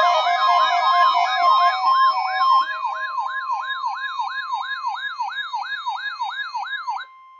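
Electronic alarm siren, a rapid repeating rising-and-falling whoop of about four sweeps a second, the kind of alert a weather radio sounds for an incoming test or warning. Music plays with it for the first two and a half seconds. The siren stops about seven seconds in and leaves a brief steady tone.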